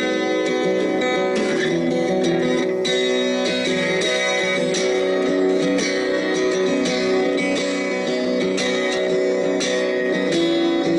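Background guitar music with plucked and strummed notes.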